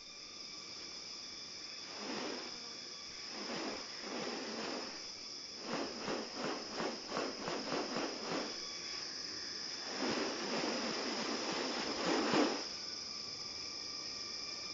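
Rainforest insects keep up a steady high drone. Over it come several breathy rustling bursts, a quick run of about ten pulses in the middle, and a longer rushing burst near the end.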